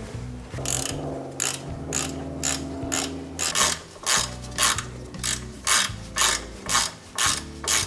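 Freshly rebuilt wheel hub and brake rotor spinning, with a rhythmic scraping swish about two to three times a second that quickens slightly.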